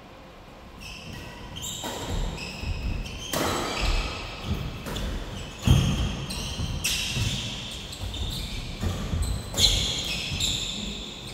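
Badminton doubles rally: sharp racket strikes on the shuttlecock at an irregular pace, with shoes squeaking on the synthetic court, echoing in a large metal-walled hall. The two loudest hits come about six and ten seconds in.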